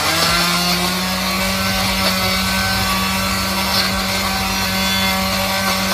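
Electric countertop blender running at full speed, chopping green chillies with salt and oil into a paste: a steady motor whirr with a constant hum.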